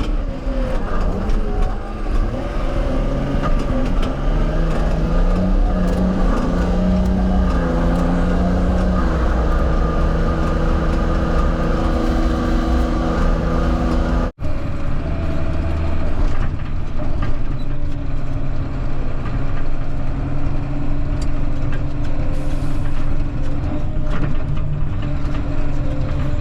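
A farm vehicle's engine running while driving. Its pitch rises and falls a few seconds in, then holds steady. The sound breaks off abruptly about halfway through and the engine picks up again.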